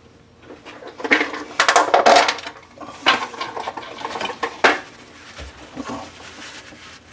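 Small metal objects clinking and rattling in several short bursts, typical of a tin of soldering flux and its brush being opened and handled to flux copper pipe.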